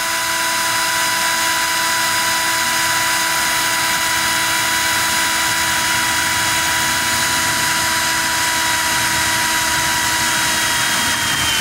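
Cordless drill running at one steady speed, its motor whining at a constant pitch while a 4.2 mm twist bit grinds slowly through a steel part.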